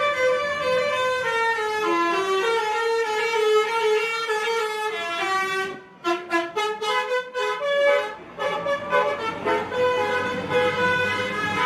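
Bus 'telolet' basuri musical horn playing a tune of held notes stepping up and down in pitch. About six seconds in, the notes break into a quick run of short toots, then the held melody resumes.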